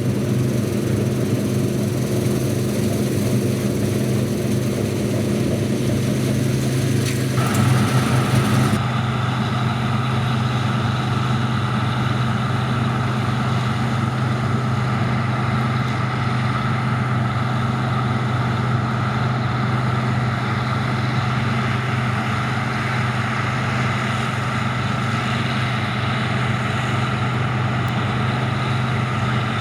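Diesel engine of heavy harvest machinery running steadily with a strong low hum. The sound changes abruptly about eight seconds in, then carries on steadily.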